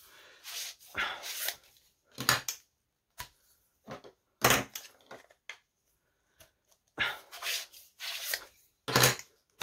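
Hollow plastic tubes, elbow connectors and clamps of a Q-Snap cross-stitch frame being picked up, knocked together and set down on a wooden desk: a run of short knocks and scrapes at irregular intervals.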